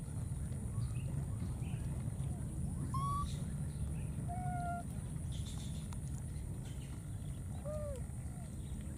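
A few short squeaky calls from baby monkeys, each a brief rising-and-falling tone: one about three seconds in, a held one about four and a half seconds in, and a curved pair near the end. Under them runs a steady low rumble and a thin, constant high tone.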